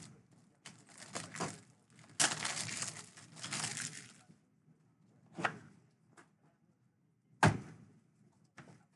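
Trading cards and foil packs handled on a table: about two seconds of rustling and crinkling, then a few knocks, the loudest a dull thump about seven and a half seconds in.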